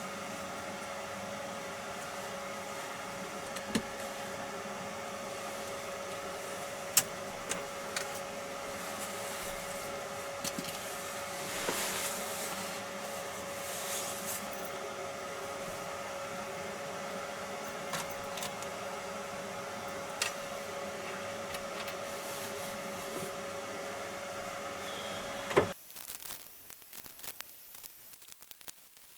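A steady machine hum with one constant tone, with a few scattered clicks and knocks, that cuts off suddenly near the end, leaving quiet with small rustling sounds.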